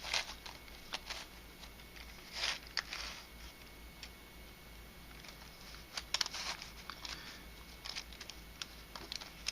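Hand-turned 3D-printed nylon twisty puzzle (a helicopter-cube/Skewb hybrid) clicking and clacking as its pieces are twisted, in a few short bursts with pauses between them.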